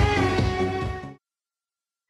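Music that cuts off abruptly a little over a second in, followed by dead silence.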